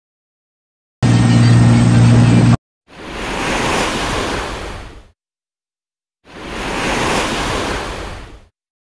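A short, loud, steady low drone that cuts off abruptly, followed by two long whooshes of rushing noise, each swelling up and fading away over about two seconds: transition sound effects for an animated subscribe outro.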